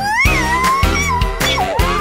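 Upbeat children's song music without singing, with a steady beat and high sliding notes, the last of which rises and holds near the end.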